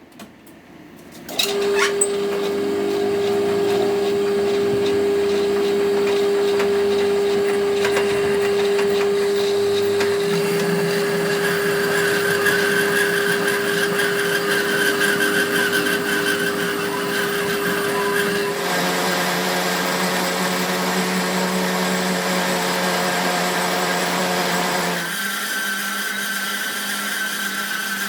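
An electric workshop power tool starts up about a second and a half in and runs steadily with a whining hum. Its tone shifts twice later on.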